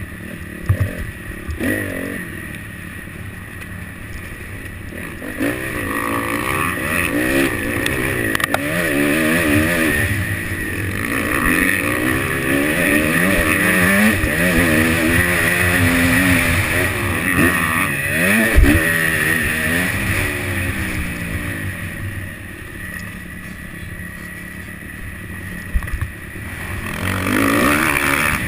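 Motocross bike engine heard from on board, revving hard and climbing and falling in pitch again and again as the throttle is worked through the gears, easing off for a few seconds near the end before pulling again. A few sharp thumps cut through, the loudest about two-thirds of the way in.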